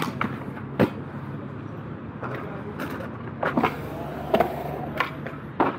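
Aggressive inline skates hitting a concrete ledge: a sharp clack at the start and a second one under a second later. Then skate wheels rolling over concrete, with several smaller clacks and knocks.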